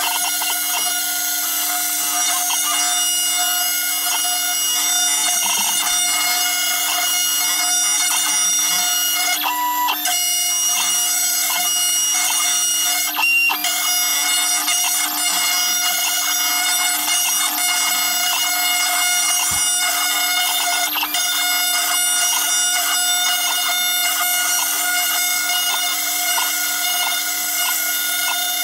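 Small CNC router running as its spindle and end mill cut a folding-knife handle scale: a steady, loud drone of several fixed tones, shifting briefly a couple of times as the cut moves on.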